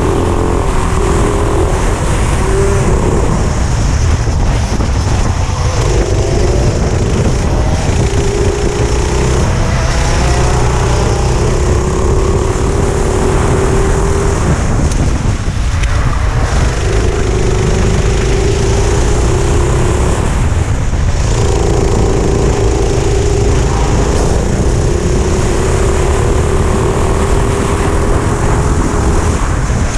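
Four-stroke kart engine running hard at high revs on track, its steady pitch dipping and breaking off briefly several times as the driver comes off the throttle, over a heavy low rumble.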